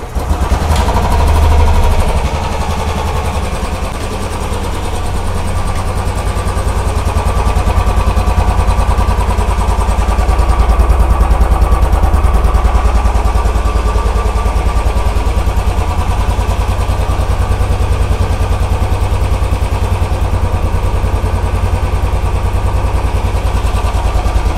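Royal Enfield Bullet 350's single-cylinder engine idling at the stock exhaust, louder for a moment near the start, then running steadily. The exhaust note is subdued, muffled by the BS6-spec catalytic converter, bend pipe and silencer.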